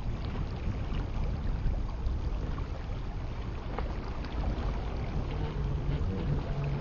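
A radio-controlled speedboat running on choppy water, under heavy wind buffeting on the microphone. A faint steady motor tone comes in about five seconds in.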